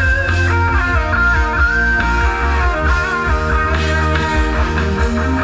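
Loud music from a rot hae sound truck's loudspeaker stacks: a steady heavy bass under a gliding lead melody.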